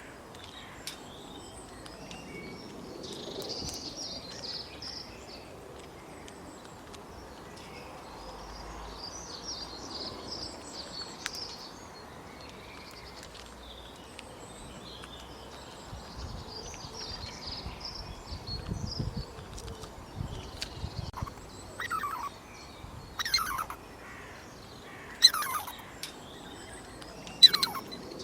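Small birds chirping softly and continuously. In the last several seconds come four loud, sharp animal calls, each sweeping steeply down in pitch.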